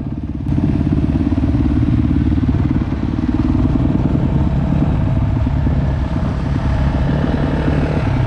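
Off-road vehicle's engine running steadily while riding along a gravel road, with tyre noise from the road surface; it gets louder about half a second in.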